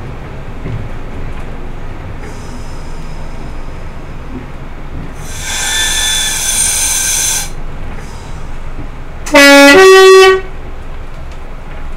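Class 122 diesel railcar running along the track, with a high-pitched ringing for about two seconds midway. Near the end comes a loud two-note horn blast, a short low note followed straight away by a higher one, lasting about a second.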